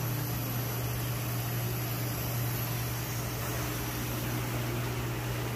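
Steady low hum with an even hiss over it, the constant running noise of the fish store's equipment; nothing starts or stops.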